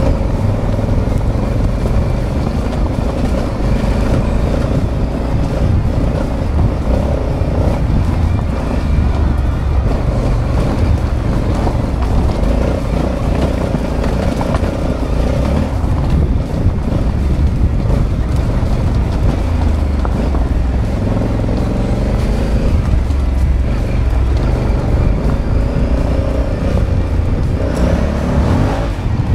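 Honda Africa Twin CRF1100 DCT's parallel-twin engine running while riding a rough trail, heard on the rider's action camera with a heavy low rumble; the revs rise and fall several times in the second half.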